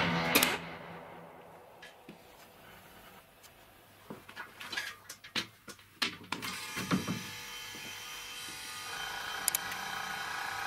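Clicks and knocks of an air hose fitting being handled and a plug being pushed into a wall socket. Then a homemade air compressor starts and runs with a steady, low hum, which grows a little louder about nine seconds in.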